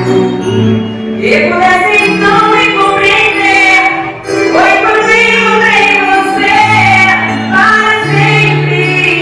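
A woman singing a slow, sustained melody over long held low accompaniment chords; it is the bride singing her own entrance song.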